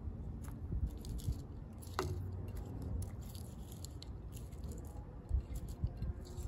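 Fresh herbs and vegetable pieces dropped by hand into a pot of broth, making soft wet plops and small splashes with scattered light taps. There is one sharper knock about two seconds in.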